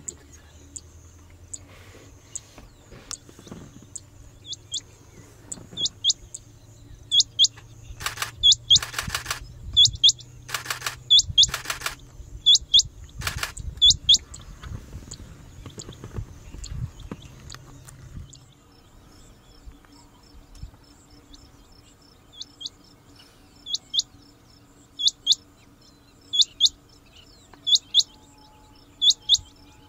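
Male rain quail calling: loud, sharp, high whistled notes, each falling in pitch, mostly given as doubled 'which-which' pairs repeated every second or so, with a pause in the middle. In the first half a few loud noisy bursts cut across the calls, over a low steady hum that stops about two-thirds of the way through.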